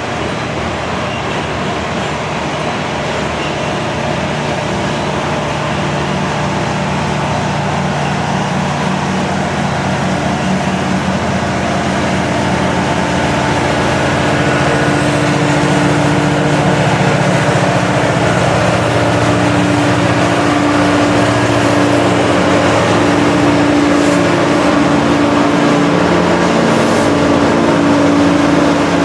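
Freight train of grain hopper cars rolling past, with the steady drone of diesel locomotive engines growing louder toward the end as the locomotives draw near.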